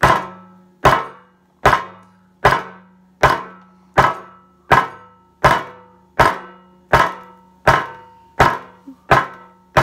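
A metal garden trowel striking a smartphone on a wooden table again and again, a sharp hit with a short metallic ring about once every 0.8 s. The hits come a little faster towards the end.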